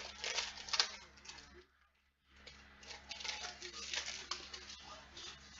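Trading cards being flipped through and shuffled by hand: quick papery rustling and flicking in irregular strokes, breaking off briefly about two seconds in before starting again.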